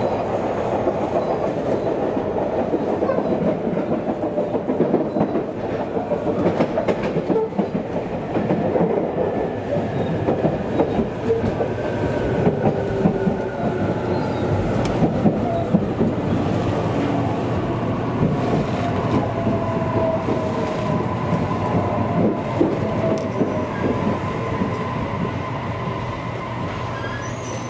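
Electric local train running along the rails, heard from inside the carriage: steady wheel and rail noise with irregular clacks. From the middle onward, a whine falls slowly in pitch as the train slows into a station.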